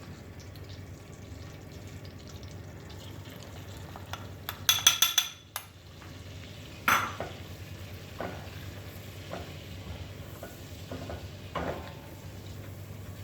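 Food frying in a pan and being stirred with a spatula, with a light sizzle over a steady low hum. There is a quick run of sharp metal clinks about five seconds in, then a few scattered knocks of the utensil against the pan.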